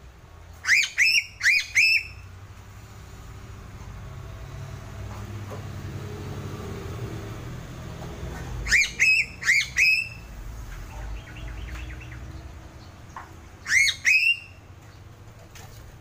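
Sulawesi piping crow calling in quick bursts of short squawking notes, each rising then dropping in pitch. There are four calls in a row about a second in, four more about eight seconds later, and a pair near the end.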